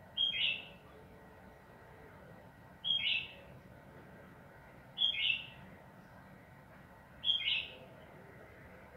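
Yellow-vented bulbul (trucukan) singing a short phrase four times, about every two seconds.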